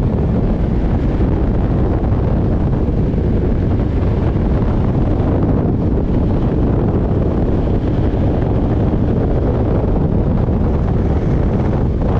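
Heavy, steady wind buffeting on the microphone over the rush of a bass boat running fast across the water, with no clear engine tone standing out.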